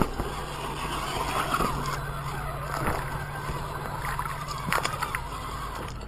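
Axial SCX10 RC crawler's electric motor and gears whining, the pitch rising and falling with the throttle as it crawls over creek rocks. Several sharp knocks, from the tyres and chassis hitting rocks, come about a second and a half in, near three seconds and near five seconds.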